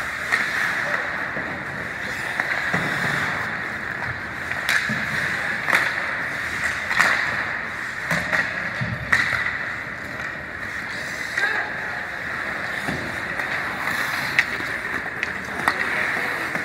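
Ice hockey skates scraping and carving on the rink ice, with sharp clacks of sticks and puck now and then and scattered voices calling out.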